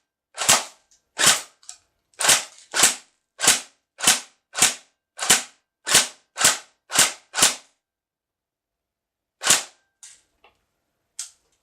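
Tokyo Marui HK416D DEVGRU electric airsoft gun firing single shots. There are about a dozen sharp cracks at roughly two a second, then a pause, then two more shots, the last one weaker.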